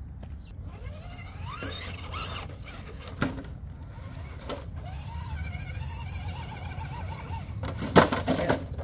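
Small electric RC rock-crawler motor and gearing whining, rising in pitch as throttle is applied and then wavering. Sharp knocks of the truck against rock, the loudest near the end.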